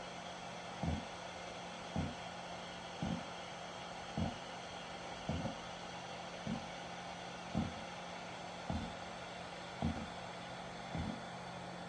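Panasonic Eolia CS-UX400D air conditioner in its automatic filter-cleaning cycle, giving a dull 'gon, goton' knock about once a second over a steady low hum. The owner thinks it happens while the unit is discharging the collected dust and asks whether it is a fault.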